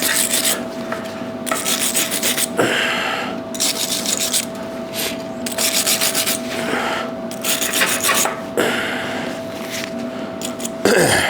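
Brush scrubbed back and forth over a fresh weld on steel, cleaning it up: scratchy strokes that come in quick runs with short pauses between.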